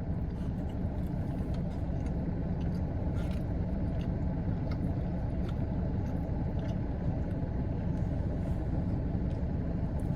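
Steady low rumble of a car's idling engine heard from inside the cabin, with scattered faint small clicks.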